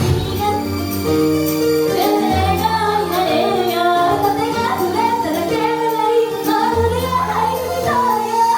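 Female idol group singing a J-pop song live over a loud backing track with held chords, bass and a steady beat.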